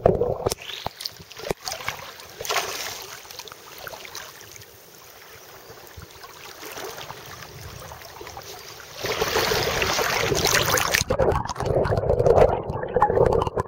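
Shallow seawater sloshing and gurgling around a camera dipped in and out of the surface, muffled while it is under; a louder rush of water comes about nine seconds in.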